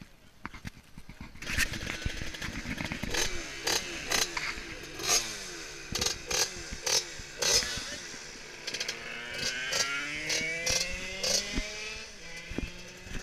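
Small two-stroke moped engine with a big-bore cylinder kit being revved hard in short blips about once a second, the pitch dropping back after each. From about nine seconds in it is held in a longer rev that climbs.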